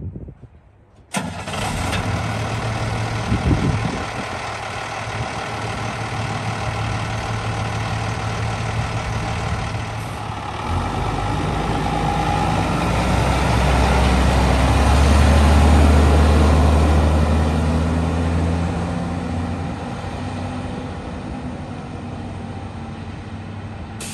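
Diesel engine of a 1997 International 4700 truck (a DT466) running as the truck pulls out and drives off. It swells to its loudest about two-thirds of the way through, then fades as the truck moves away.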